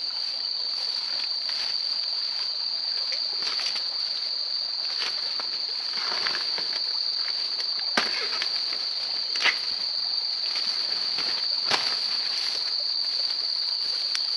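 Insects keep up a steady, high-pitched drone. Over it, feet push through grass and undergrowth with a light rustling, and there are a few sharp snaps about eight, nine and a half and eleven and a half seconds in.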